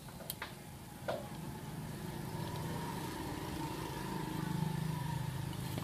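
A motor engine running steadily in the background, growing somewhat louder past the middle, with a few light clicks early on from handling the trap parts.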